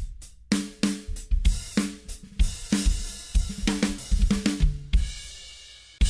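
Drum-heavy music mix played back through an analog stereo bus compressor for a compression sound test. Kick, snare, hi-hat and cymbals hit about three times a second, until a last hit near the end rings out as a cymbal wash.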